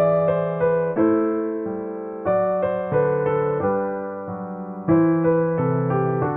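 Background music played on an electric piano: gentle chords struck about once a second, each fading before the next.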